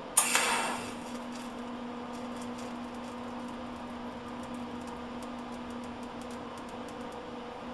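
A single sharp metallic clank just after the start, ringing briefly and fading, then a few faint scattered ticks, over a steady electrical hum.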